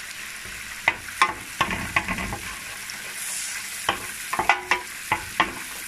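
Butter sizzling and bubbling in a stainless steel frying pan, a steady hiss, while a wooden spoon stirs it and knocks against the pan about ten times.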